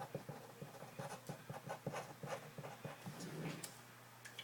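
A pen writing a name on a post-it note: a run of short, quick strokes on the paper.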